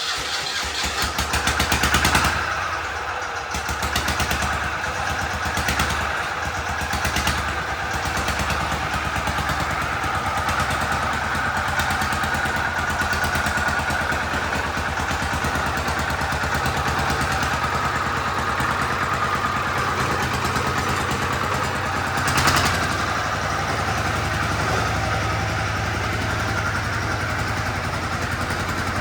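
Deutz F1L 210 single-cylinder air-cooled diesel engine of a hand-built mini dozer running, with a few short surges in the first several seconds and one brief louder burst about 22 seconds in.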